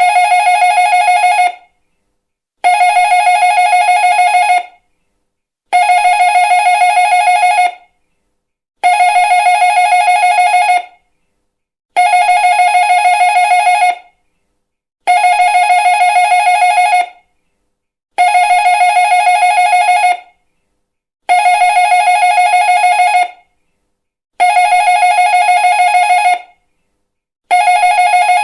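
Doorbell ringing over and over: a fast-trilling ring about two seconds long, repeated about every three seconds.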